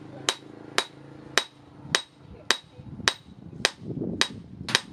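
Hand hammer striking a hot steel knife blade forged from rebar on an anvil, in a steady rhythm of about two blows a second. Each blow rings with a bright metallic clang.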